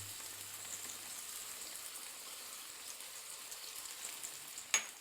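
Oil sizzling with fine crackles in a hot pan, and a single sharp click near the end.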